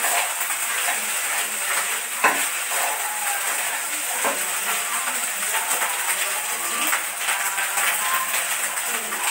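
Fried rice sizzling in a frying pan on a gas stove while a spatula stirs it, with occasional knocks of the spatula against the pan.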